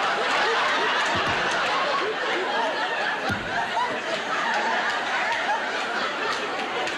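A studio audience laughing in a long, sustained wave, with a few dull low thuds under it.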